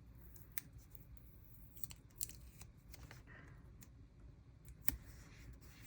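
Faint crackles and small clicks of paper stickers being handled and peeled from a roll of washi stickers, a few louder ticks among them.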